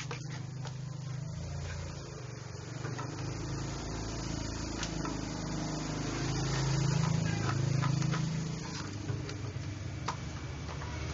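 Plastic cable-box cover being fitted onto a generator's control panel, with a few small clicks and scrapes, over a low steady motor hum that swells and fades about halfway through.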